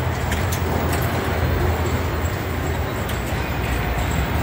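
Steady din of a crowded pinball arcade hall: a low rumble and a general wash of noise, with scattered sharp clicks and knocks from the pinball machines being played.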